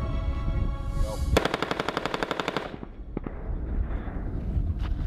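A burst of rapid automatic gunfire, about a second long, with many evenly spaced shots, followed by a low rumble and a couple of single bangs. Music with held tones plays in the opening second or so.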